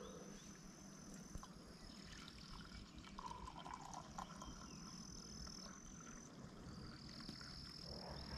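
Faint, steady high-pitched trilling of insects that comes and goes. About three seconds in there is a short liquid trickle, coffee being poured.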